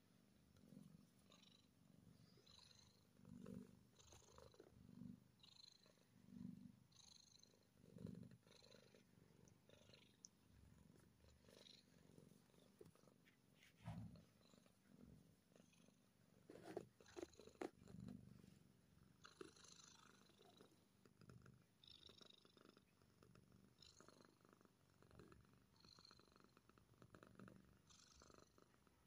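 Calico kitten purring faintly while being petted, the purr swelling and fading in pulses about once a second.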